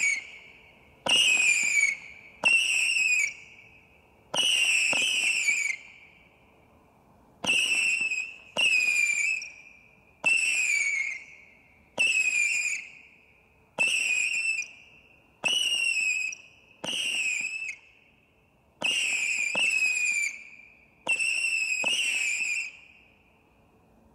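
Bright Star Giant 18 Shot Barrage firework cake firing whistling shots: about fifteen launches at uneven intervals of one to two seconds. Each is a sharp pop followed by a shrill whistle that lasts about a second and falls slightly in pitch; the last one fades out near the end.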